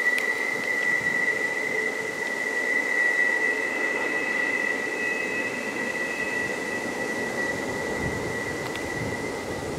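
Freight train wheels squealing on a curve as the double-stack container cars pass: one steady high-pitched squeal that fades out near the end, over the steady rumble of the train.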